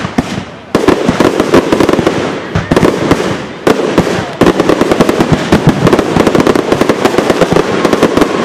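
Fireworks going off: a dense, rapid barrage of crackling bangs and reports. It comes in loud waves that start up again abruptly several times.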